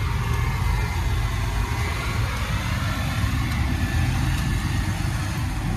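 Tanker truck's diesel engine idling, a steady low hum.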